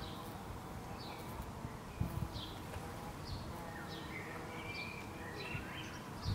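Garden ambience: small birds calling with short high chirps about once a second, and a brief warbling phrase in the second half, over a low steady background rumble.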